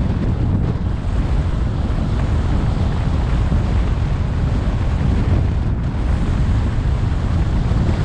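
Steady wind rush on the microphone of a camera riding on a moving car, with road noise underneath.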